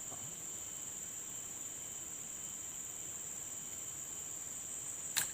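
Steady high-pitched chirring of insects, with one sharp click near the end.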